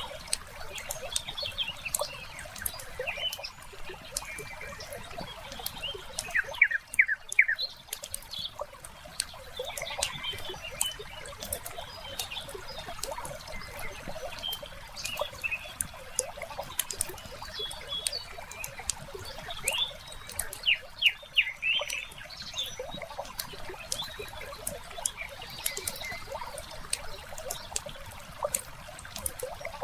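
Wood fire crackling with frequent sharp pops, layered over a soft water-and-nature bed with birds chirping. Two louder runs of quick chirps stand out, one about seven seconds in and another about twenty-one seconds in.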